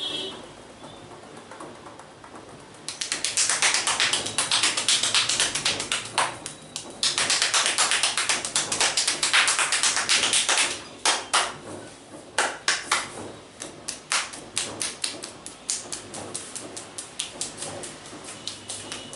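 Hands tapping and slapping rapidly on an oiled head in a percussive head massage: two dense runs of quick strikes a few seconds long, then separate taps, a few a second, at an uneven pace.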